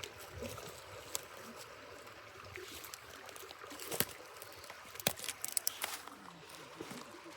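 Water trickling around a beaver-clogged culvert as it is being dug out, with a few sharp knocks and clicks about four to six seconds in.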